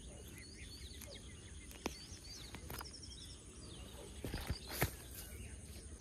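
Small birds chirping and twittering steadily in the background, with a couple of sharp clicks and then a short burst of louder rustling and knocks about four seconds in, from handling close to the microphone.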